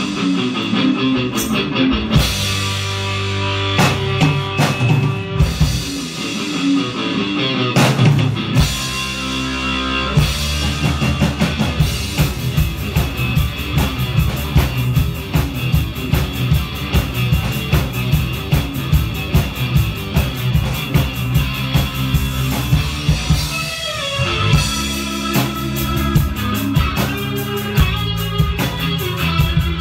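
Live rock band: distorted electric guitar over a drum kit, with sustained chords and punctuating hits at first, settling into a fast, steady drum beat about ten seconds in.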